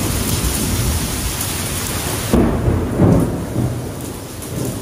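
Typhoon wind and heavy rain, a steady roar of wind-driven rain, with two loud low gusts a little past halfway.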